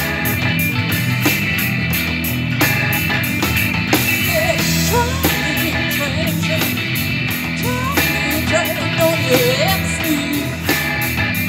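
Live rock band playing a song: electric guitars, bass guitar and drum kit, with a steady beat of drum accents. A lead melody bending in pitch comes in about four seconds in.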